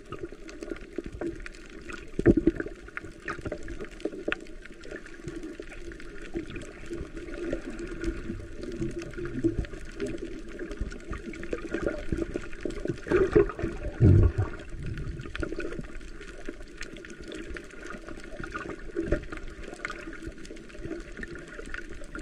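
Muffled underwater sound around a submerged camera: water moving and gurgling, with irregular knocks, the loudest about two seconds in and around thirteen to fourteen seconds in.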